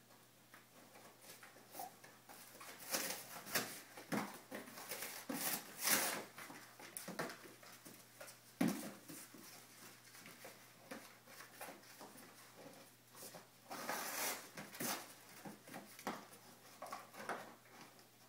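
Two English springer spaniel puppies chewing and tearing at a cardboard box: irregular scratchy rips and crinkles of cardboard, with a sharp knock about nine seconds in and a denser run of tearing around fourteen seconds.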